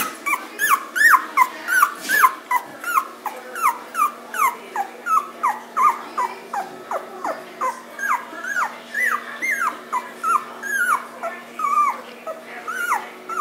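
Two-week-old beagle puppy cries: rapid high squeaks and whines, about three short calls a second, each rising and then falling in pitch.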